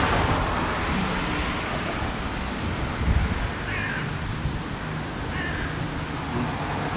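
Wind on the microphone, with a bird giving two short calls about a second and a half apart, midway through.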